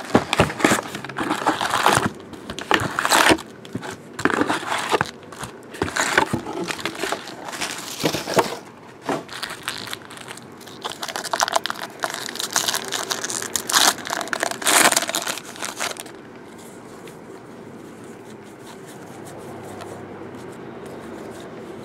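Plastic shrink wrap and foil trading-card pack wrappers crinkling, rustling and tearing in irregular bursts. About sixteen seconds in this gives way to a low steady hiss.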